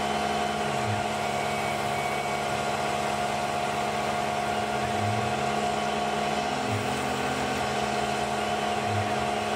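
Tormach CNC mill milling a metal part with an end mill under flood coolant: a steady high whine over an even hiss, with a lower hum that briefly shifts in pitch every few seconds.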